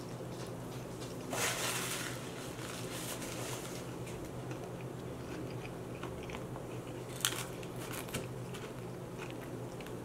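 Close-miked mouth sounds of a person chewing fried food, with a loud crunchy stretch about a second and a half in, a sharp crackle about seven seconds in, and small wet clicks throughout.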